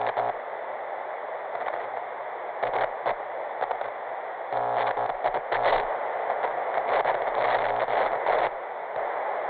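Television static: a steady hiss with crackles and short glitchy bursts, somewhat louder in the second half.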